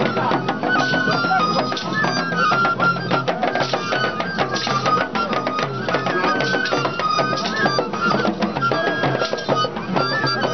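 Traditional music played live: fast drumming and percussion with a high melody moving in short held steps over it.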